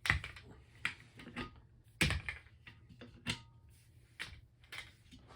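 The old office chair casters being pulled out of the chair base: a series of sharp hard-plastic clicks and knocks, about seven, irregularly spaced, with the loudest near the start and about two seconds in.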